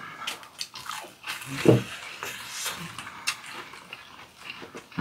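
Mouth sounds of people chewing fried shrimp ball skewers: scattered wet smacks and clicks, with a short low hum from one of the eaters about one and a half seconds in.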